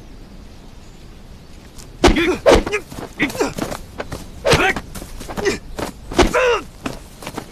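Men grunting and yelling in a hand-to-hand fight, with thuds of blows and scuffling feet. It starts about two seconds in, after a low background rumble, and comes as a string of short, loud cries.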